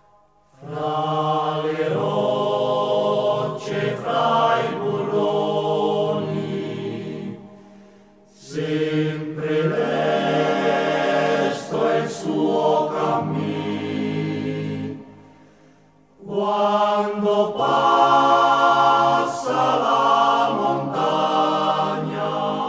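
Background music with chant-like sung vocals in long sustained phrases of about seven seconds, each fading out before the next begins.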